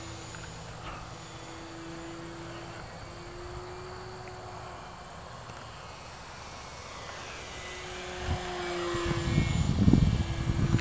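Electric motor and propeller of a small RC aerobatic plane whining overhead, the pitch drifting up and down with the throttle and fading out and back in as the plane flies around. Near the end there is a louder low rumble.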